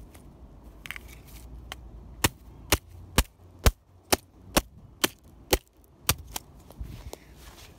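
An iPhone 5 being struck again and again with a metal-shafted tool: about a dozen sharp, hard cracks, coming roughly twice a second through the middle of the stretch.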